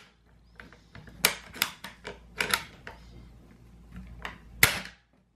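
Benjamin 392 air rifle's bolt being worked to check the newly fitted bolt cam: a string of sharp metal clicks and clacks, the loudest a snap about four and a half seconds in.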